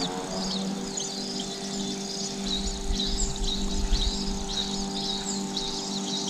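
Baby birds chirping in the nest: a continuous run of short, high-pitched cheeps, several a second. A low rumble comes in around the middle.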